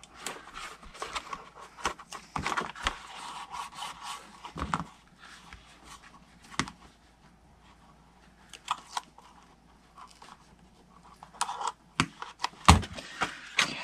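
Paper-craft handling sounds: double-sided tape pressed onto black cardstock and its backing lifted and peeled off with a pointed pick tool, giving quick rustles, scrapes and clicks. It goes quieter for a few seconds in the middle, then comes back with sharp taps and one louder knock near the end.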